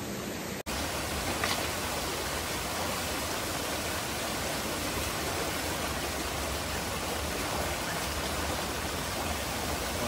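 Mountain stream rushing steadily over rocks in a small cascade, with a brief break about half a second in.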